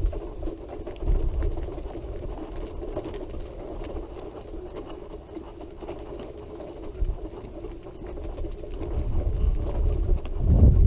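Powered wheelchair rolling along a path: a steady motor hum with uneven low rumbling.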